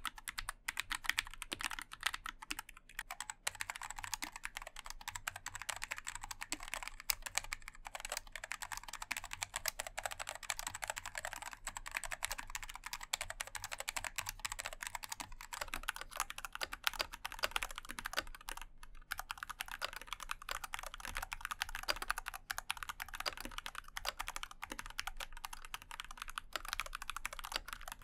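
Continuous fast typing on a NuPhy Air96 low-profile mechanical keyboard with PBT keycaps and pre-lubed linear Daisy switches (48 gf): a dense stream of key clacks, with brief pauses about three seconds in and again near nineteen seconds.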